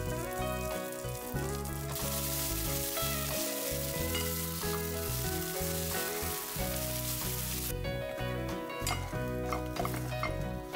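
Sliced onions sizzling in a pan as they caramelize, stirred with wooden spatulas. The sizzle is loudest from about two seconds in until nearly eight seconds in, then gives way to small clicks and scrapes.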